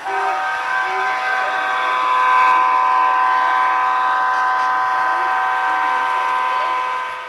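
A model locomotive's sound system blowing one long, steady horn blast of about seven seconds, starting suddenly and fading out near the end.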